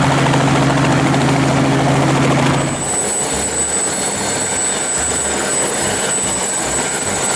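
Helicopters running: first a small helicopter on the ground with its rotor turning and a steady droning hum. About three seconds in, the sound switches abruptly to a helicopter hovering, a rushing rotor noise with a thin, high steady whine over it.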